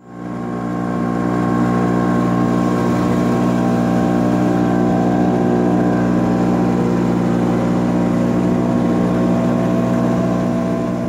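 Engine of a small wooden river boat running steadily under way, one even drone that starts suddenly and fades out near the end.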